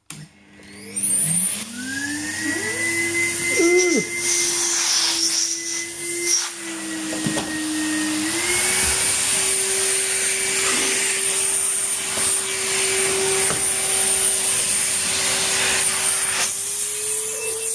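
Numatic Hetty tub vacuum cleaner switched on, its motor whine rising as it spins up, then running steadily, its pitch stepping up slightly twice. It is running with its filter taken out.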